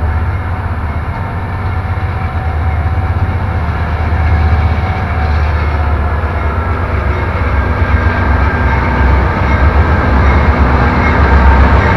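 CSX freight train rolling past: a steady heavy rumble of railcars on the track that grows louder toward the end.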